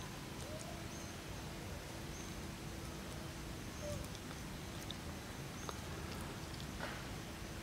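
Quiet outdoor ambience: a steady low background noise with faint, short high chirps every second or two and a few soft clicks.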